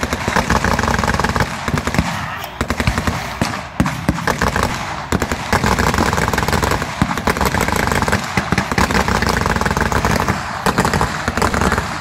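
Blank gunfire in rapid, overlapping bursts: machine guns rattling continuously, with single rifle shots among them.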